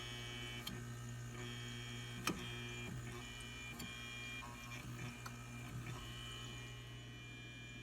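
Refrigerator fan motors running with a steady electrical hum and a faint high whine that comes and goes, with a single click about two seconds in. The evaporator fan motor is failing.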